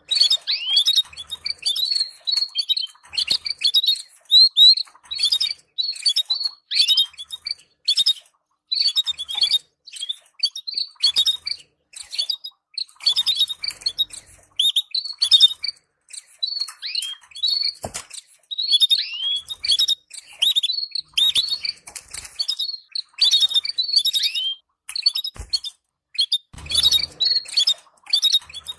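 Canaries twittering: a busy, continuous run of short, high chirps, many sweeping downward, with only brief gaps. This is the chatter played to canary pairs to stimulate them for breeding.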